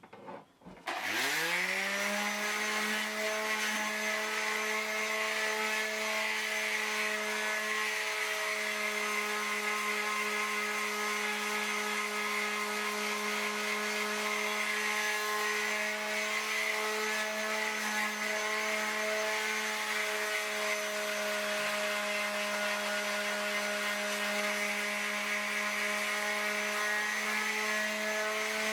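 Electric power sander starting up about a second in, its motor rising quickly in pitch, then running steadily with a whine and hiss while sanding wood.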